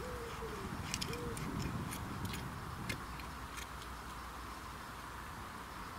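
A wood pigeon cooing for about the first second and a half. Through the first few seconds come a handful of sharp ticks and scrapes from a garden hoe working dry soil.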